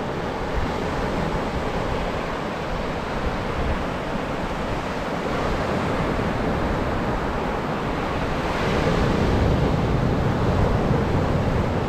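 Surf breaking and washing up the beach in a steady rush, a bit louder in the last few seconds, with wind buffeting the microphone.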